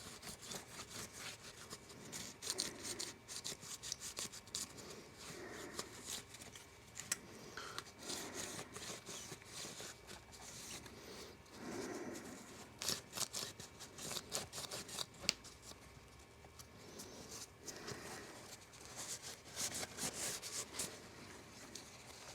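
Small blade and wipe scraping and rubbing old screen adhesive off an iPhone X's frame: faint scratchy strokes coming in quick clusters, with short pauses between them.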